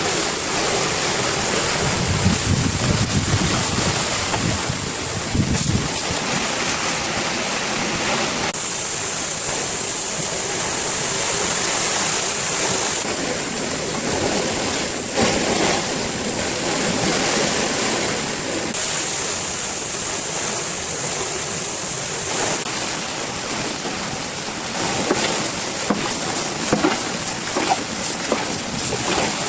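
Heavy rain pouring steadily in strong wind, a dense constant hiss, with a low rumble in the first few seconds and scattered sharp drop ticks near the end.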